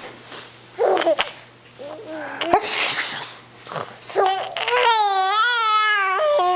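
Baby laughing and babbling in short bursts, then a long, high-pitched squealing laugh that wavers up and down, set off by someone's sneezes.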